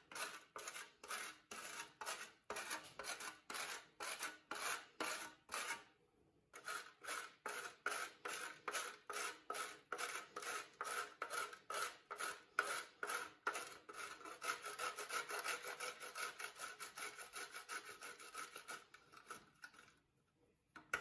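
Frozen shortcrust dough being grated on a metal box grater: rhythmic rasping strokes, about two a second, with a short pause about six seconds in, then quicker strokes that fade out near the end.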